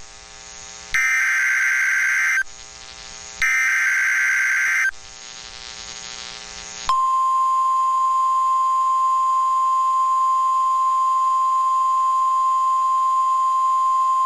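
NOAA Weather Radio SAME (Specific Area Message Encoding) header: loud, buzzy digital data bursts about a second and a half each, repeated with short gaps, that encode a new severe thunderstorm warning. About seven seconds in, the steady 1050 Hz weather radio warning alarm tone starts and holds unbroken.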